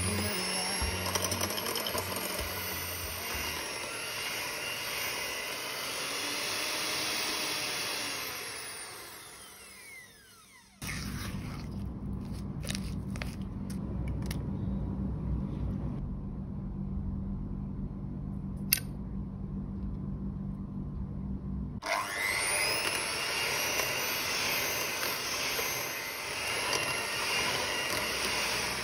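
Electric hand mixer beating butter and sugar in a glass bowl, then winding down. A quieter stretch follows with a low hum and a few light clicks. About two-thirds of the way in, the mixer starts again, spinning up and running steadily.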